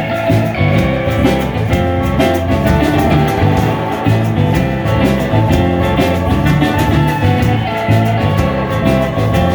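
A band playing an instrumental passage, with guitar and drum kit keeping a steady beat.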